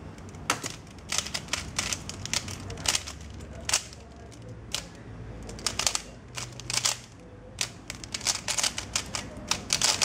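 Moyu Weilong 3x3 speedcube being turned fast during a timed speedsolve: rapid runs of sharp plastic clicks and clacks as the layers snap round, broken by short pauses.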